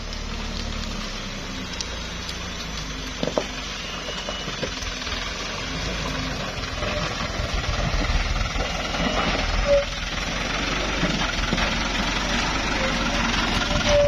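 Engine of a Toyota Dyna dump truck running under load as it crawls up a muddy slope, getting louder as the truck approaches and passes close, with a few short clicks about three seconds in.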